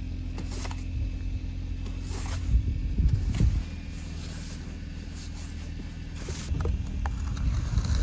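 Snow brush and plastic ice scraper sweeping snow off a car's windows in a few short strokes, over a steady low rumble.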